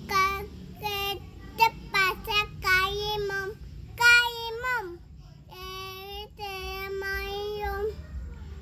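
A young child singing in a high voice: a run of short notes, then long held notes, the last one stopping about eight seconds in.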